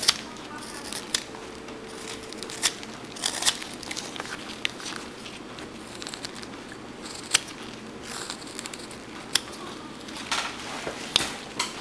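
Carving knife's point cutting and prying small chips out of a wooden carving: scattered sharp snaps and short scrapes of the blade in the wood, a few seconds apart.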